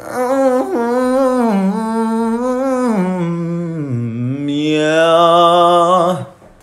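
A voice singing a wordless melody in one unbroken phrase, with held notes that slide down low about four seconds in and rise again, stopping about six seconds in.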